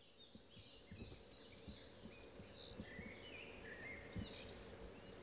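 Faint birdsong from several small birds, chirping and whistling, with a rapid trill about a second and a half in. Soft low knocks and rustles sound now and then underneath.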